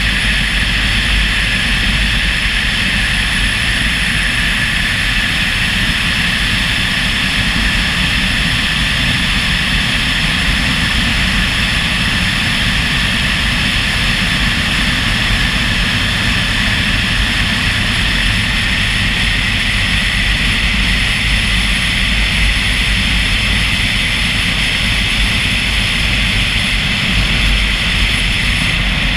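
Steady drone of a vehicle travelling at road speed: engine, tyre and wind noise that stays even throughout.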